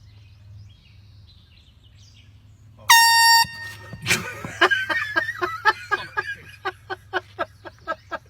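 Faint bird chirps, then about three seconds in a handheld air horn blasts once, loud and steady in pitch, for about half a second. It is followed by a sudden loud burst and a long run of rapid, evenly spaced pulses, like someone laughing hard.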